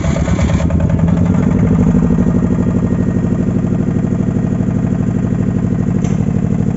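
Engine of a 15 kVA silent (canopied) generator running just after being started by key and push button, with a steady, regular throb; the harsher noise of the start dies away about half a second in and it settles to an even idle.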